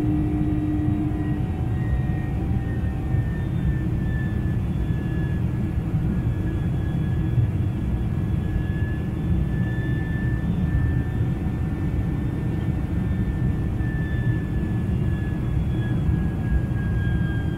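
Boeing 747-400's General Electric CF6-80C2 turbofans during the climb after takeoff, heard inside the cabin: a steady deep rumble with a thin high whine that slowly falls in pitch. A lower hum drops out about a second in.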